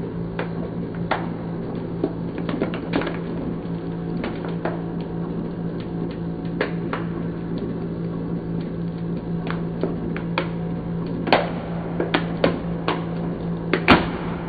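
Hydraulic press running with a steady hum while its ram squeezes a water-filled plastic bottle; the plastic crackles and pops in scattered sharp cracks that come thicker and louder in the last few seconds, the loudest about a second before the end.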